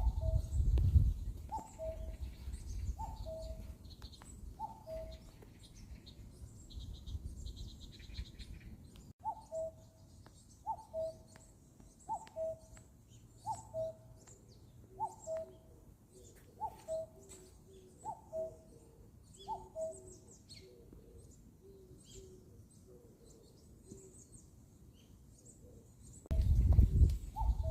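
Common cuckoo calling its two-note "cuck-oo", a higher note dropping to a lower one, repeated about every second and a half. There is a pause of a few seconds partway through, and the calling stops after about 20 seconds. Small birds chirp faintly in the background, and low rumbling noise comes at the start and end.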